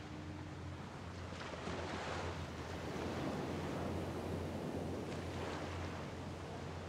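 Small bay waves washing onto the beach, the wash swelling a few seconds in and easing off, over a steady low rumble of wind.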